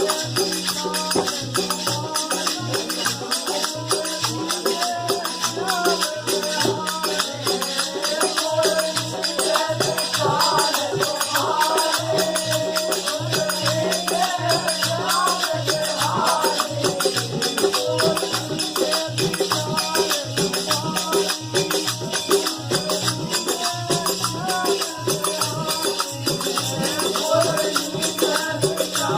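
Faag, a Holi folk song: a drum keeping a steady beat under jingling, rattling percussion, with a voice carrying a wavering melody.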